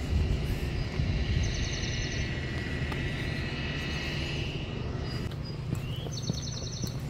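Footsteps on pavement under a low rumble on the microphone, while walking outdoors. A bird gives a short rapid trill twice, about a second in and near the end.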